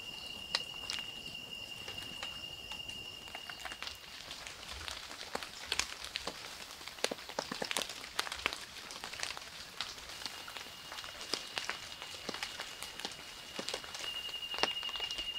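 Night forest ambience: an insect's steady high-pitched trill, stopping about four seconds in, returning after ten seconds and turning pulsed near the end, over scattered sharp ticks.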